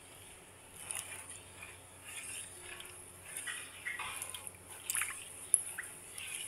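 Wooden spoon stirring a thickening coffee gulaman mixture in a nonstick pan: irregular sloshing and squelching of the liquid, with a few sharp clicks of the spoon against the pan.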